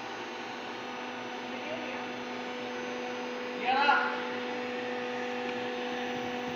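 Hydraulic baling press's electric motor and pump unit running with a steady hum. About four seconds in, a brief, louder, high-pitched sound rises above it.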